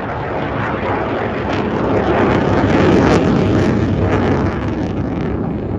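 F-22 Raptor's twin Pratt & Whitney F119 afterburning turbofans passing, a loud rushing jet noise with crackle that swells to its loudest about halfway through and then eases off.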